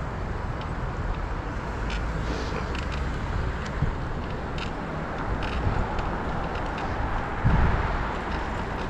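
Wind buffeting a head-mounted GoPro's microphone during a bike ride, a steady low rumble mixed with road and tyre noise, with a few faint clicks and a stronger gust about seven seconds in.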